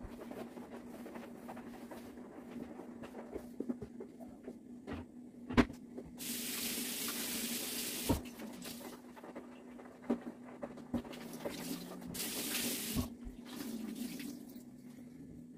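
Kitchen tap running twice, about two seconds and then about one second, with sharp knocks and small clinks of dishes around it over a steady low hum.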